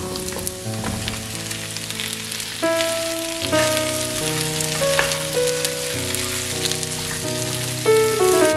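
Diced potatoes and garlic sizzling in butter in a non-stick frying pan, with light taps as pieces of zucchini drop in. Soft background music plays along.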